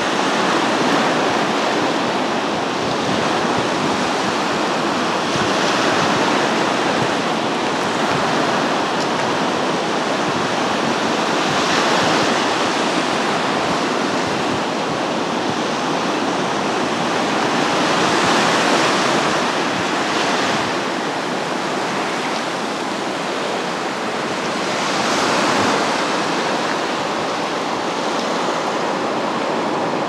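Black Sea surf breaking in the shallows and washing up a flat sandy beach: a steady rush that swells about every six seconds as each wave comes in.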